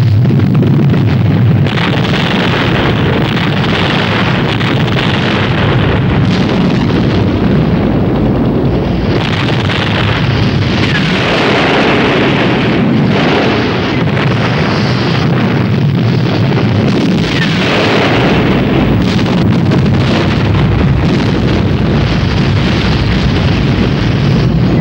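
Film sound effects of explosions: a loud, continuous rumble of blasts that swells several times.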